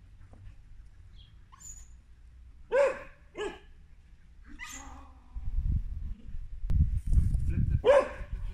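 Australian kelpie barking, about four short single barks spread out, the last one near the end. A deep rumbling noise runs underneath in the second half.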